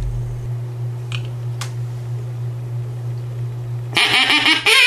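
A plastic duck call blown once, giving a loud quack about four seconds in. Before it there is only a low steady hum and two faint clicks.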